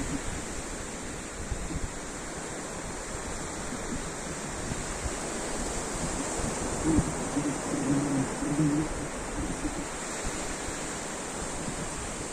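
Ocean surf: a steady wash of breaking waves, swelling to a louder, rumbling peak about two-thirds of the way through and then easing back.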